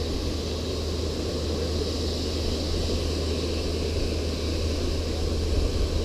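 Steady rushing roar of water pouring down a dam face and churning the tailwater, an even noise with a deep rumble underneath.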